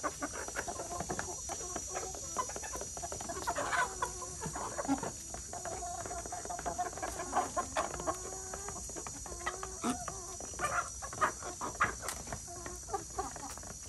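A flock of chickens, hens and roosters, clucking and calling over one another while they feed, with short clucks, a few longer wavering calls and scattered sharp taps.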